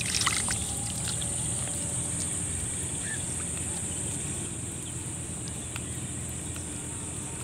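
A few small splashes and drips of water in the first moment as a current net is handled in shallow water, then a steady low rumble with a faint high hiss.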